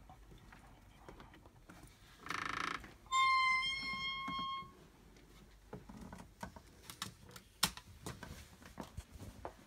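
A short hiss, then a steady high-pitched squeak lasting about a second and a half, followed by faint footsteps, soft knocks and rustling of people creeping into a dark bedroom.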